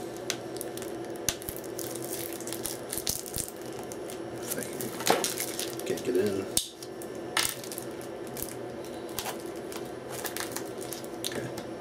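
Plastic shrink-wrap on a Blu-ray case crinkling and crackling as it is peeled and torn off, with many sharp clicks throughout.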